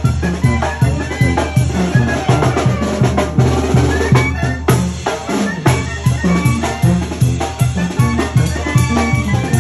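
Upbeat Latin-style music with a drum kit keeping a steady beat over a heavy bass, and brass.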